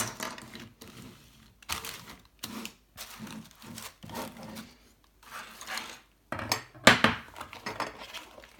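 Metal parts of a 3D printer kit, including linear rails, knocking and clinking on a table as they are handled and moved, with plastic and bubble wrap being handled. A sharper knock about seven seconds in is the loudest.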